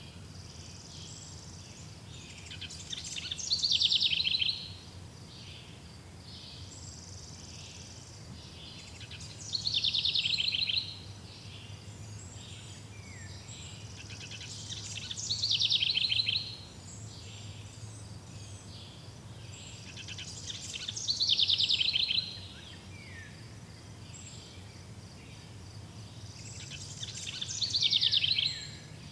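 A songbird singing the same loud, high-pitched phrase five times, about every six seconds, each phrase swelling in loudness over a second or two and then stopping. Between the phrases there is a steady faint background of high chirping and a low hum.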